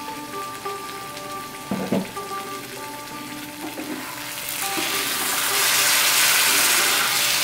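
A thick poppy-seed (posto) curry sizzling in a kadai over a gas flame as a spatula stirs it. The sizzle grows much louder from about halfway through, once the stirring starts. There is a single knock of the spatula against the pan about two seconds in.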